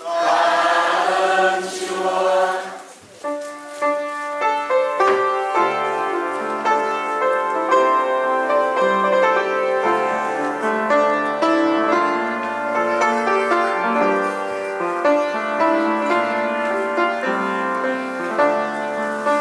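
Church choir singing a hymn with keyboard accompaniment, after a short opening phrase and a brief dip about three seconds in.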